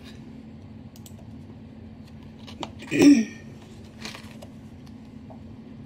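A short vocal 'hm' falling in pitch about three seconds in, over a steady low hum and a few faint paper rustles.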